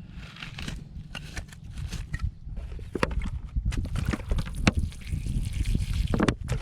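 Irregular splashing and dripping of water, denser from about halfway through, over a steady low rumble.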